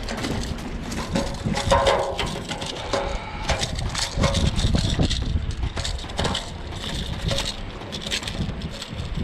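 Wind rumbling on the microphone over lapping water, with scattered knocks and rattles as a hooked spotted seatrout is lifted from the water and swung onto the wooden dock.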